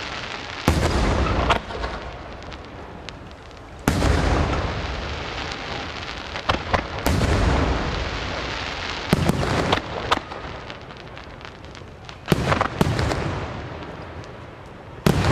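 Aerial firework shells bursting overhead: about ten sharp bangs, several coming in quick pairs, each trailing off slowly into the next.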